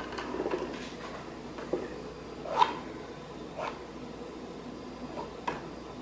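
Quiet room tone broken by a handful of faint, short clicks and taps, the clearest about halfway through.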